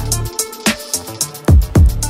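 Electronic background music with a steady beat and deep bass notes that drop in pitch.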